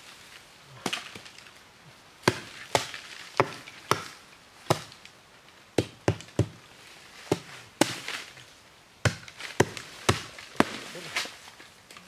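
Wood being chopped with a hand tool: about fifteen sharp, separate strikes at uneven intervals, roughly one every half second to second.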